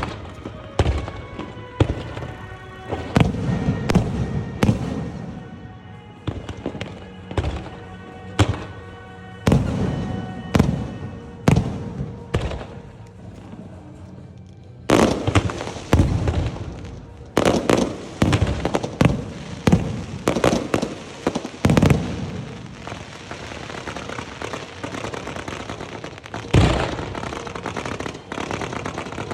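Fireworks going off in a barrage: sharp bangs about once a second at first, then a dense run of rapid bangs and crackling from about halfway on. Music plays underneath during the first half.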